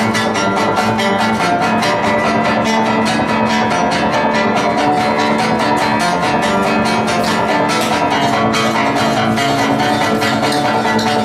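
Acoustic-electric guitar strummed in a fast, even rhythm, about five or six strokes a second, with chords ringing on.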